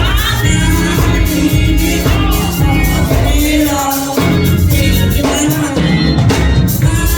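Gospel music with singing over a full band and a steady beat.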